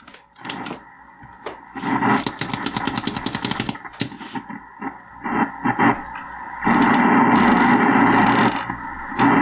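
Drake 2-B communications receiver's speaker audio while it is tuned across the 40-meter ham band: static and hiss with signals coming and going. For about two seconds there is a fast chattering pulse, and a steady louder rush follows later on, with a few sharp clicks in between.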